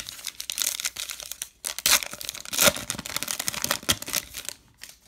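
Plastic wrapper of a baseball card pack crinkling and tearing as it is ripped open, in a run of irregular crackles that stops near the end.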